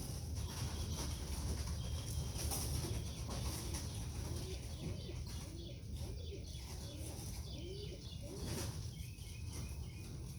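Pigeons cooing in the loft: a run of short, low coos about halfway through, over a steady low rumble.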